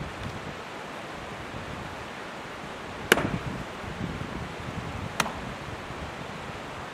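Two sharp axe blows into a dead log, about two seconds apart, the first louder. A mountain stream rushes steadily underneath.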